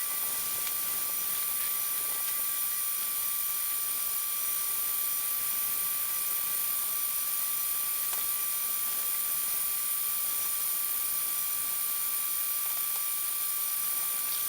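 Steady hiss with a few faint, high, constant whine tones, unchanging throughout and with almost no low rumble.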